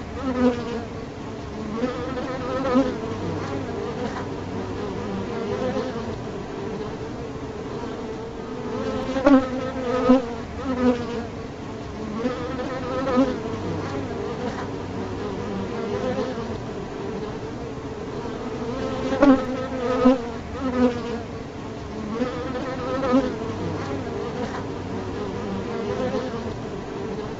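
A bee buzzing in flight: a continuous low hum whose pitch wavers, swelling louder in short peaks every second or two as it comes near.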